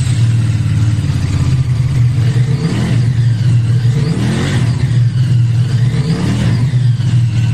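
Qianjiang Sai 550's 270-degree-crank parallel-twin engine running steadily, freshly rebuilt with replacement crankshaft bearing shells to cure a knocking noise when the throttle is closed.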